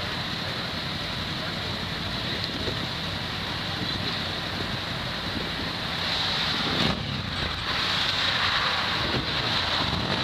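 Street traffic noise from a group of motorcycles running on the road, with wind buffeting the microphone. It grows louder past the halfway point, when a vehicle passes close by.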